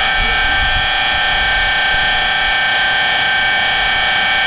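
Steady electrical hum and whine: several high, unchanging tones over a faint low rumble.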